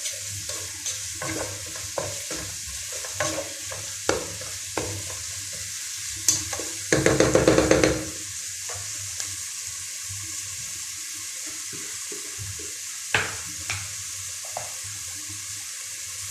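Sliced onion and garlic frying in oil in a pot with a steady sizzle, while a spatula scrapes and knocks against the pot as it is stirred. About seven seconds in comes a second of fast, rapid scraping.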